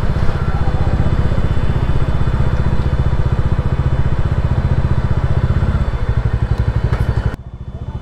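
Motorcycle engine running with a steady low, rapid beat. Near the end the upper hiss cuts out suddenly and the engine's beat goes on alone.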